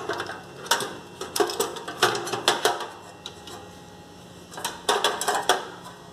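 Metal gas cartridge knocking and clicking against a portable camping stove's cartridge compartment and catch as it is fitted into place. There is a run of clicks in the first half and another cluster near the end.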